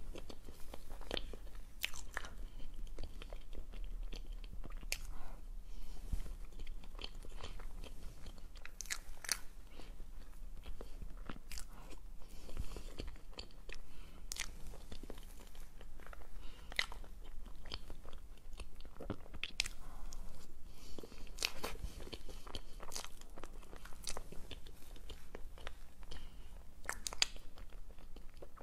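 Close-miked eating sounds of a soft matcha and red bean cream cake: wet chewing with sharp mouth clicks at irregular intervals.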